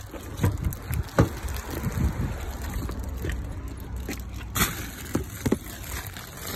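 Knocks, thumps and rustling from handling as someone climbs into a parked car, over a steady low rumble of wind on the phone's microphone.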